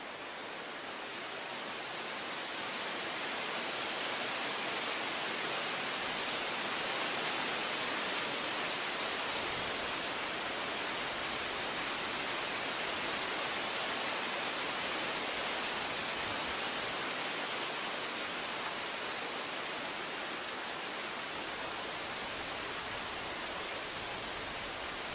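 A steady, even rushing noise of outdoor nature ambience, such as running water or wind, growing a little louder over the first few seconds and then holding.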